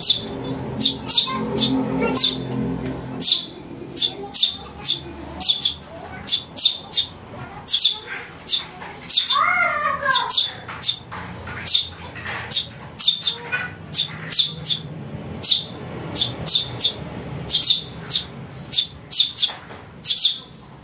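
Young Eurasian tree sparrows giving rapid, repeated short begging chirps, about two a second.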